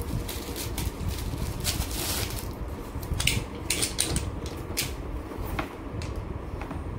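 Plastic packaging crinkling and rustling in the hands while a pressure washer's spray gun and hose are handled, in irregular crackles that die down after about five seconds, then a couple of light clicks near the end. A steady low hum runs underneath.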